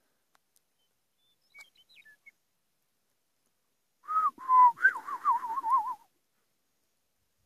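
Whistling, about two seconds long starting about four seconds in: a couple of held notes, then a quick wavering up and down around one pitch. A few faint, short, high chirps come a couple of seconds earlier.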